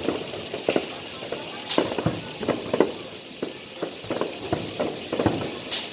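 Fireworks display going off: irregular sharp bangs and pops, several a second.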